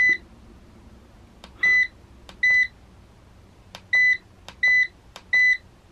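Xantrex Freedom X inverter/charger remote panel beeping as its buttons are pressed to step through settings: six short, high beeps, each just after a faint click of the button.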